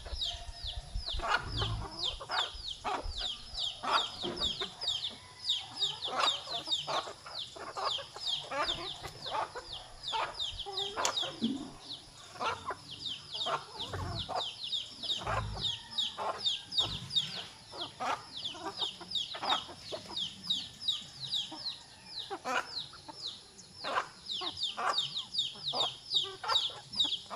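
A flock of chickens calling together: a dense, continuous chorus of short, high, falling cheeps over scattered lower clucks, with a couple of dull low thumps about halfway through.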